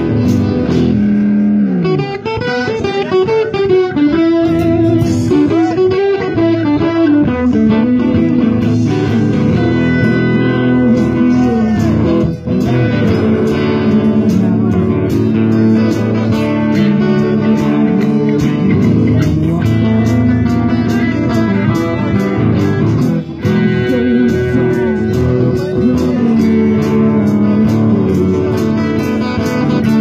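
A live band playing a song with electric guitar. In the first several seconds a lead line bends its notes up and down over the band.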